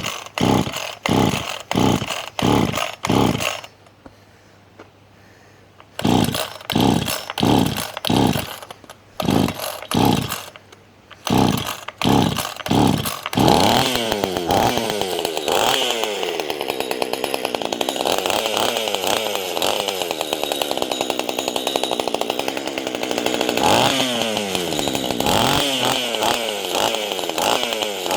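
Small two-stroke chainsaw engine being pull-started: short bursts about two a second with each pull of the cord, a brief pause, more pulls, then it catches about halfway through and keeps running, its revs rising and falling back a few times. The ignition is working again after a failed coil left it with no spark.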